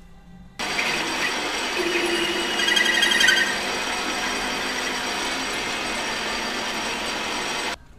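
ALFA AL350x250V metal lathe running at about 700 rpm with its cutting tool turning a bar of hard steel: a steady mechanical whine with a grinding cutting noise. A short squealing chatter of the cut comes about two to three seconds in. The sound starts suddenly about half a second in and cuts off abruptly near the end.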